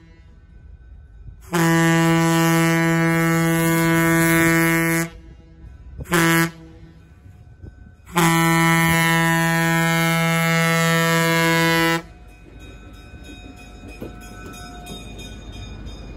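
Multi-tone air horn of the Nebraska Zephyr's EMD E5 diesel locomotive finishing a grade-crossing signal: a long blast, a short one, and a final long blast. After the last blast the train's rumble and rhythmic wheel clicks build as it draws near and the stainless steel cars start rolling past.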